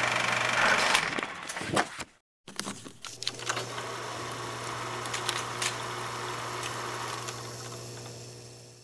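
Film-projector sound effect: a steady mechanical whir over a low hum, with crackle and scattered clicks. It cuts out completely for a moment about two seconds in, then comes back quieter and fades out.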